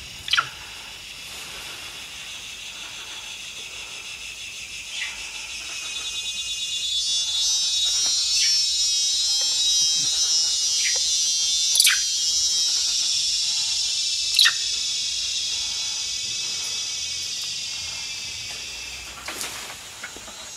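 A high-pitched, buzzing insect drone, cicada-like, swells up about a third of the way in, holds loud, then fades near the end. A handful of short, sharp chirps or clicks cut through it.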